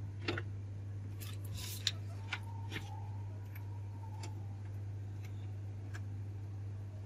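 HP Ink Tank 315 inkjet printer's mechanism making scattered clicks and ticks, with a faint whine of its motor for a couple of seconds near the middle, over a steady low hum. The printer is working again after its printhead error was cleared and is getting ready to print.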